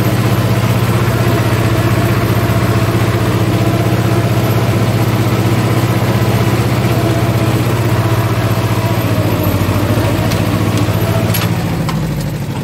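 Ursus C-330's two-cylinder diesel engine running steadily, heard from inside its rattly cab while pulling a manure spreader. Near the end its note eases and the sound drops slightly, with a few clicks.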